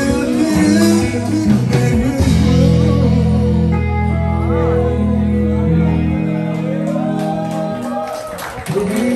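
Live band music: a man singing into a microphone over electric guitar and drums, with a long chord held for several seconds in the middle.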